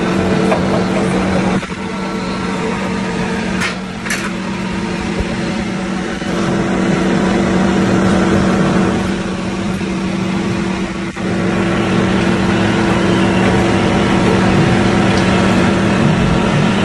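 Steady machine hum of a motor running at a constant pitch, with two short sharp clicks about four seconds in.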